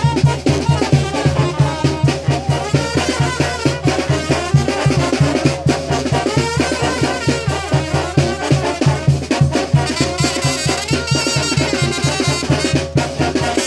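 Brass band with drums playing dance music with a steady beat.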